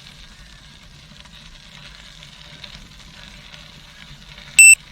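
Tandem bicycle tyres rolling over a gravel path, a steady crackling hiss over a low rumble. Near the end there is one short, loud electronic beep.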